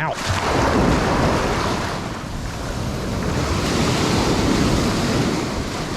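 Ocean surf washing up the beach in one long, swelling rush of water, with wind buffeting the microphone.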